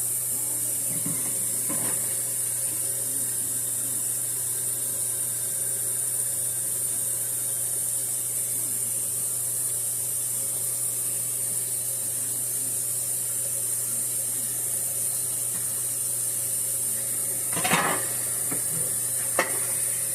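Dishes being washed at a kitchen sink: a steady hiss with a low hum, and a few clinks and clatters of dishes near the end.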